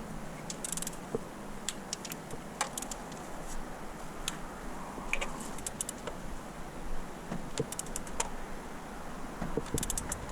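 Scattered sharp metallic clicks and clinks of hand tools working on the engine, a few in quick clusters like a ratchet, over a low hiss.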